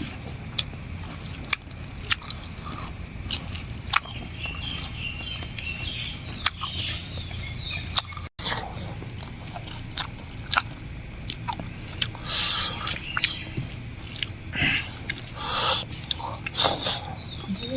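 Close-up eating sounds of a person chewing and biting food, with many sharp clicks. From about 12 s the bites come louder in short noisy bursts.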